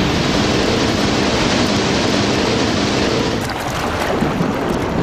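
A whale blowing at the surface: a long rushing, hissing exhalation over rough sea, thinning out a little past three seconds in.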